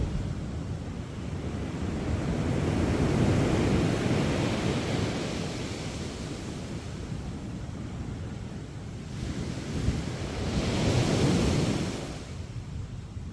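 Sea waves breaking on a sandy beach and washing up the shore, two swells of surf about seven seconds apart, the second dying away near the end, with wind buffeting the microphone.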